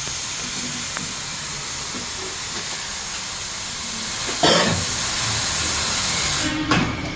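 A loud, steady hiss of gas or spray escaping under pressure, swelling briefly about four and a half seconds in and cutting off suddenly near the end.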